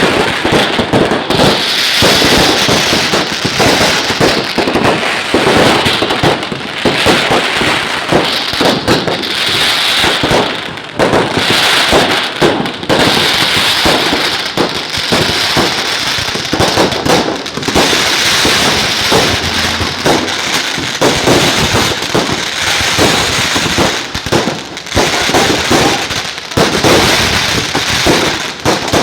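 Fireworks and firecrackers going off in a dense, unbroken barrage of bangs, with a hissing crackle swelling and fading through it.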